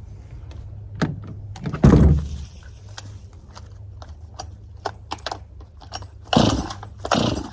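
Clicks and knocks of equipment being handled, with a heavy thump about two seconds in and two louder rustling bursts near the end.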